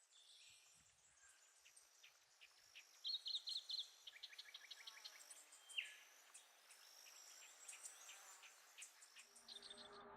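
Faint cloud-forest ambience of birds chirping and insects calling: many short high chirps, a quick run of about five notes about three seconds in and a single louder chirp near six seconds. Electronic music fades in near the end.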